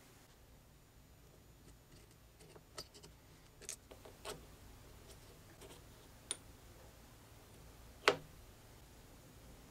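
Small metal engine parts clicking and tapping against each other as a model rotary engine's housing plates are fitted over its eccentric shaft by hand: a few scattered light clicks, with one sharper knock about eight seconds in.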